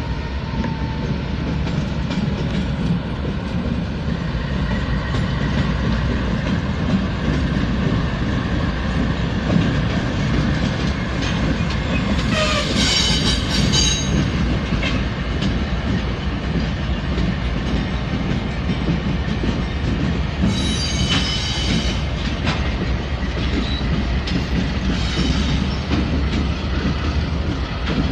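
Norfolk Southern diesel locomotives rolling past, a steady engine rumble with wheels clicking over rail joints. Two brief high-pitched squeals break through, about twelve and twenty-one seconds in.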